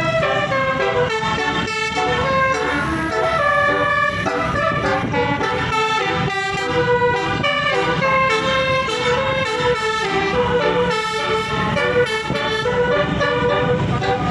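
Basuri telolet bus air horn, a set of tuned multi-trumpet horns, playing a melody in quick stepping notes, over a low engine rumble.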